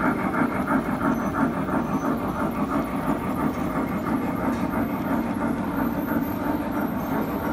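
G scale model train cars rolling past on their track, the wheels making a quick, even clicking rhythm that becomes a little less distinct near the end.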